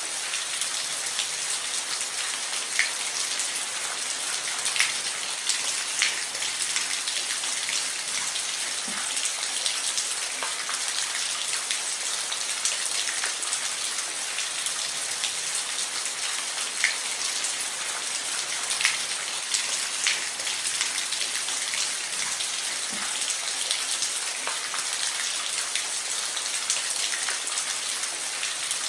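Steady rain falling on a roof: a constant hiss with scattered louder individual drops landing.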